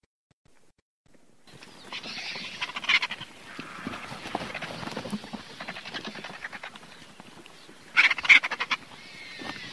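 Vultures giving harsh, hissing calls that begin about a second and a half in. The loudest is a rattling burst about eight seconds in.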